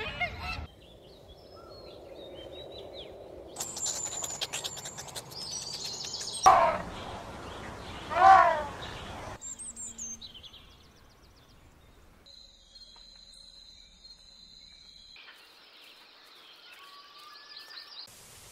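A string of short animal sound clips, mostly bird chirps and whistled calls with some rapid clicking, broken by two loud calls about six and eight seconds in.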